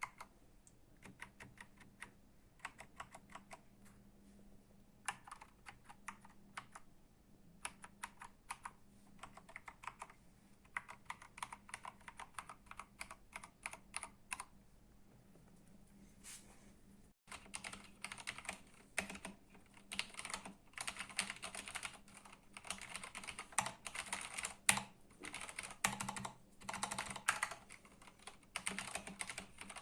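Keys being typed on an AKKO 3084 SP Ocean Star mechanical keyboard with Cherry MX switches: scattered single keystroke clicks at first, then, after a brief break about 17 seconds in, faster and louder continuous typing.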